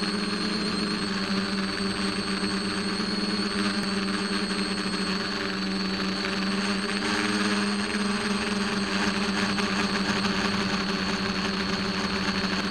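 Electric motors and propellers of an RC multirotor running steadily, heard through its onboard camera's microphone: an even hum with a thin high whine above it.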